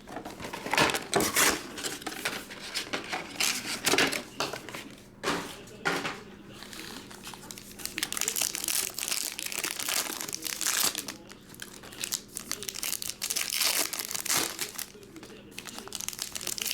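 Plastic wrapping on a 2022 Panini Select UFC trading card box and its packs being torn open and crinkled by hand, in irregular rustling bursts.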